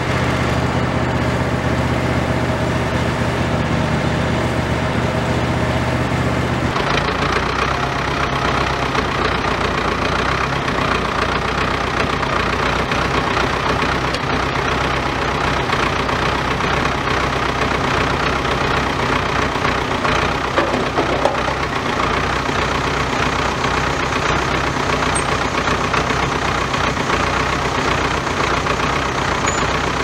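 Tractor engine idling steadily. Its tone shifts about seven seconds in.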